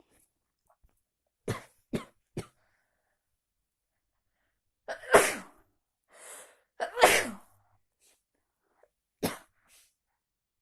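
A person sneezing again and again: three short sneezes in quick succession about a second and a half in, two loud full sneezes around the middle, and one more short sneeze near the end.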